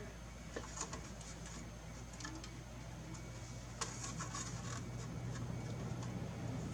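Small parts and tools being handled on a workbench: scattered light clicks and rubbing, over a steady low hum that grows a little louder about halfway through.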